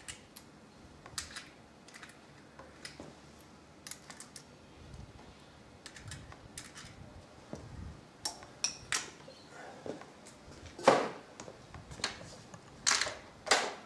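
Irregular small clicks and clinks of a socket tool and loose metal parts at the end casing of a Hewland Mk 8 gearbox as its nuts are undone, with a few louder metallic knocks near the end.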